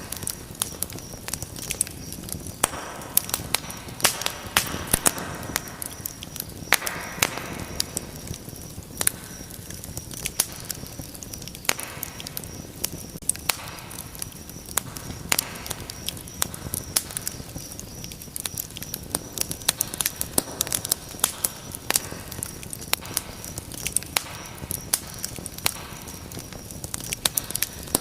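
Wood fire burning in a fireplace, crackling with irregular sharp pops and snaps over a soft rushing of the flames.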